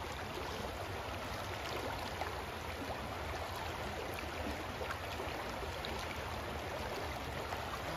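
Shallow river riffle rushing steadily over a rocky bed.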